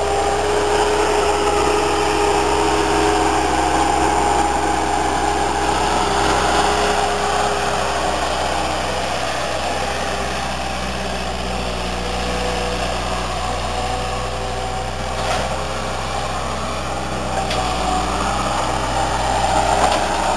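1999 Bobcat 873 skid-steer loader's diesel engine running steadily, with a steady whine over it that shifts a little in pitch as the machine works.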